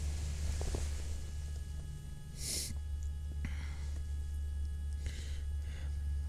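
Motorised equatorial telescope mount slewing its RA axis for polar alignment: a steady whine of several thin tones over a low hum. A few breaths near the microphone, about two and a half seconds in and again around five seconds.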